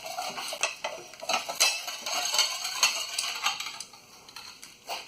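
Irregular light metallic clinks and rattles, thinning out and getting quieter after about four seconds.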